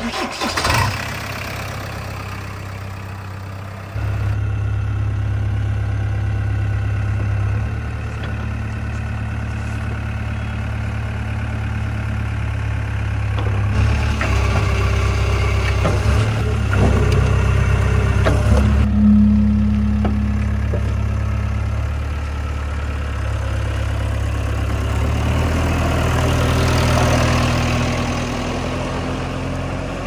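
JCB 3DX backhoe loader's diesel engine running steadily with a low hum, stepping up in level about four seconds in.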